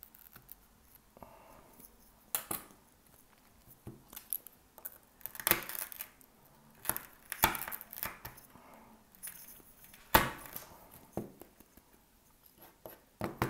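Thick shattered iPhone 13 back glass being pried and scraped off the phone: irregular clicks, scrapes and glassy cracks, with about four louder snaps.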